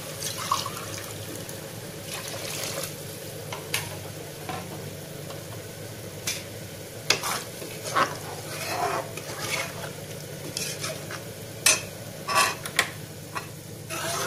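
A metal ladle stirring a watery mushroom masala in an open pressure cooker, scraping and clinking irregularly against the pot, over a steady hiss from the heating liquid.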